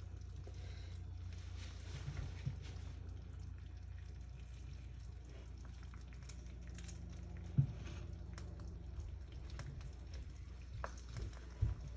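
Food frying faintly in an oiled pan while a spatula stirs it: scattered light scrapes and taps, with one sharper knock about seven and a half seconds in, over a steady low hum.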